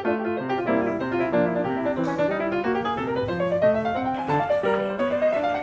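Background piano music: a flowing solo piano line with rising runs of notes.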